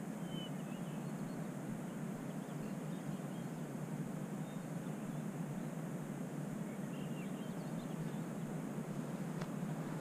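Steady low rush of outdoor ambience, with a few faint bird chirps near the start and again about seven seconds in.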